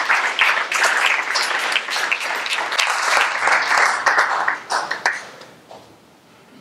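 Audience applauding. The applause dies away about five seconds in, with a few last separate claps.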